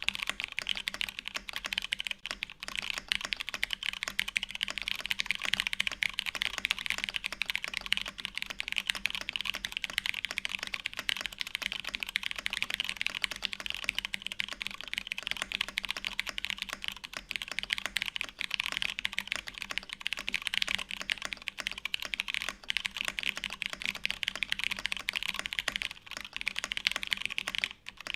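Fast, continuous typing on a custom mechanical keyboard with lubed Cherry MX Brown switches on a UHMWPE plate, a dense stream of key clicks, with a brief pause about a second before the end.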